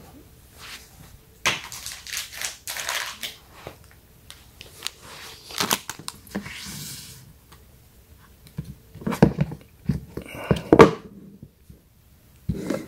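Crinkling plastic packaging of a phone case being handled, in several irregular rustling bursts, with heavier handling noises near the end as the cardboard phone box and the phone are shifted on the table.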